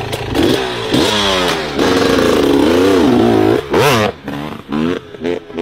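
Dirt bike engine revving, its pitch rising and falling several times, with one quick high rev about four seconds in before it drops away.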